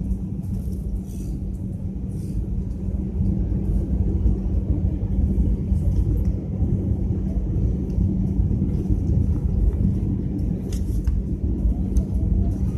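Airliner cabin noise during the approach to landing: a steady low rumble of engines and airflow with a constant hum, growing louder about three seconds in.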